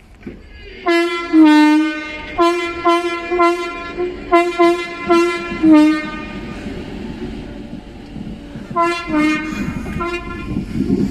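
Merseyrail train's two-tone horn sounding a rapid run of short toots, about two a second, with each run ending on the lower note. A second run starts about three seconds after the first stops, while the train's running rumble builds near the end.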